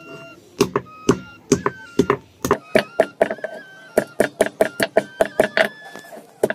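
Stone grinding pestle (batta) knocking down on a flat grinding stone (sil), pounding turmeric root in quick, irregular strikes, about three to four a second.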